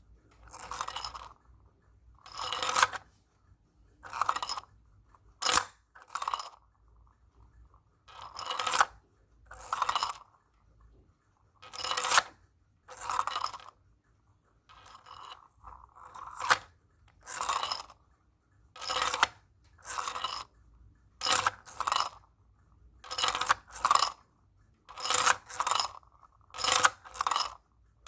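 3D-printed plastic fidget toy worked by hand, its nested printed parts sliding in and out with a short scraping clatter each time. The strokes repeat about once a second and come quicker in the second half.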